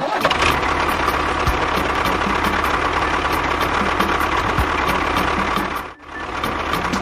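An engine running steadily with a faint regular pulse. It drops out briefly about six seconds in, then picks up again.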